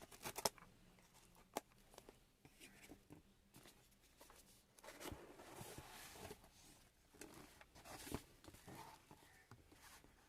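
Faint clicks and soft scraping of the seal tape on a cardboard product box being cut, with a longer scratchy stretch about halfway through.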